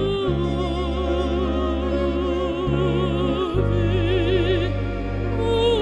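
Mezzo-soprano singing operatically over sustained low instrumental notes. She holds one long note with wide vibrato for about three seconds, then moves on to a new phrase.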